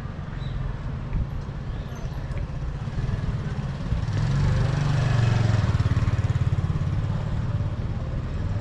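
Street traffic: a motor vehicle passing close by over a steady low rumble, loudest about halfway through and then fading.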